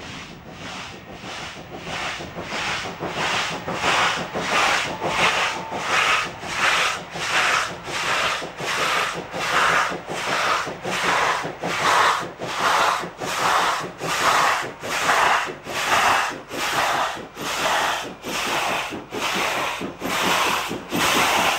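Steam locomotive working hard with a heavy freight train on a climb, its exhaust beating slowly and evenly at about two beats a second and growing louder as it approaches. It is labouring with a leaking cylinder cover.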